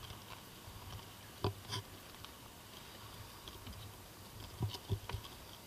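Quiet, scattered footsteps on a hiking trail: a couple of soft crunches about a second and a half in, and a few more near the end, over a faint background.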